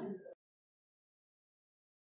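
Dead silence, with the audio track completely blank after the last spoken word ends in the first moment.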